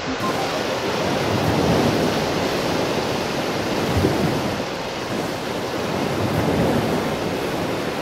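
Ocean surf washing over a beach: a steady rush of water that swells twice as waves come in and draw back.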